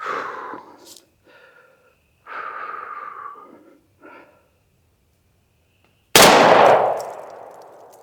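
A single shot from a Charter Arms Target Bulldog .44 Special revolver firing a handload about six seconds in, sudden and loud, with its report fading over about a second and a half. A few short, soft breathy sounds come before it.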